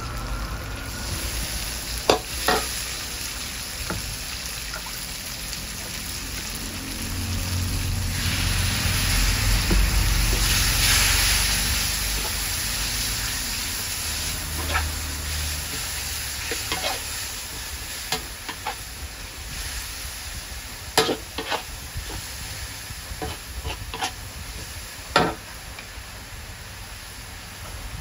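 Pad Thai stir-frying in a wok: oil sizzling steadily while a metal spatula stirs and tosses the ingredients and rice noodles. The sizzle swells louder for a few seconds about a third of the way in, and the spatula knocks and scrapes sharply against the wok now and then, more often near the end.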